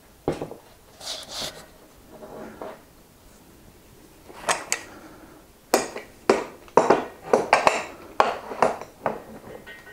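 Wooden handscrew clamps and the hub-motor wheel's metal axle bracket knocking and clattering against a wooden workbench as the wheel is stood upright and clamped down. A few scattered knocks and scrapes at first, then a quick run of about a dozen sharp taps in the second half.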